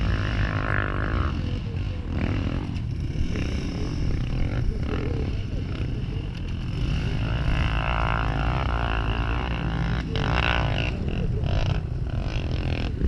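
Dirt bike engine running with revs rising and falling as the motorcycle is ridden over tyre and log obstacles.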